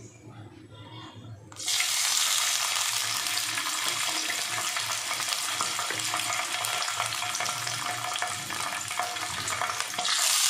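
Pabda fish going into hot mustard oil in a kadai: the oil breaks into a sizzle suddenly, about a second and a half in, and keeps up a steady frying sizzle as more fish are added.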